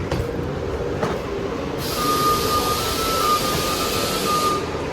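Steady low rumble inside a moving vehicle. About two seconds in, a loud hiss starts with a thin high squeal over it; both stop sharply nearly three seconds later.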